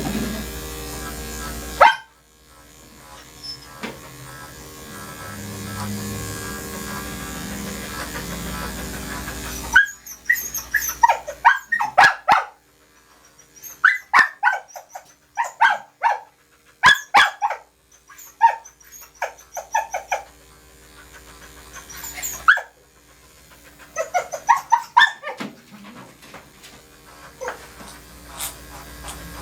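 Dog barking in repeated short, sharp barks that come in several clusters, beginning about ten seconds in. Electric grooming clippers are running at the start and cut off about two seconds in.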